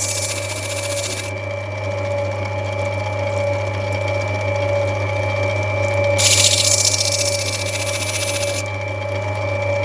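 Lapidary grinding machine running with a steady motor hum and whine while a rough opal is rubbed back on its wheel; a hissing grind rises twice, at the start and again about six seconds in, each lasting a couple of seconds.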